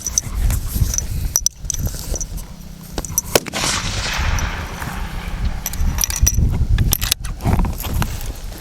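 A fullbore target rifle shot about three and a half seconds in, its report trailing off over a second or so, with a few sharper clicks and knocks around it over a low rumble.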